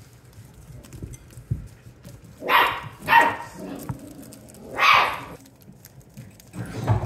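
Australian Shepherd puppy barking three short times, the first two half a second apart and the third almost two seconds later.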